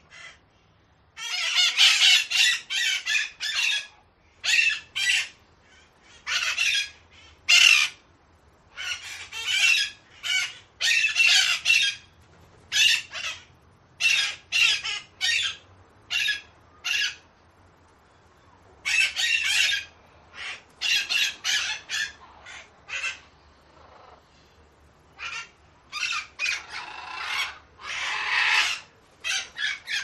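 Parakeets giving harsh, rasping screeches in quick runs of several calls, with short pauses between the bouts.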